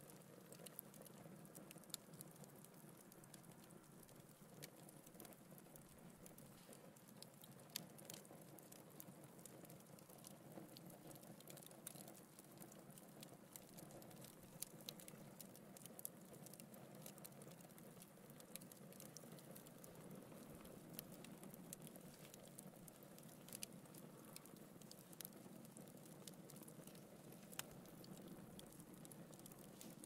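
Wood fire burning in a fireplace, crackling faintly: frequent small sharp pops and a few louder snaps over a soft steady rush of the burning logs.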